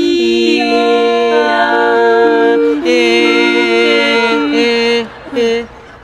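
Women's barbershop quartet singing a cappella, four voices holding close-harmony chords that shift every second or so. The singing breaks off about five seconds in, and one short sung note follows.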